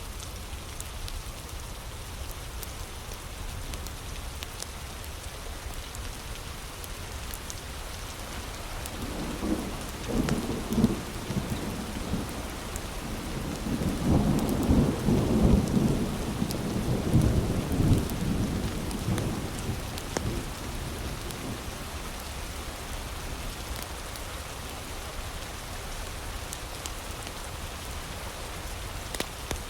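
Steady heavy rain, with a low roll of thunder that builds about nine seconds in, is loudest a few seconds later and dies away after about twenty seconds.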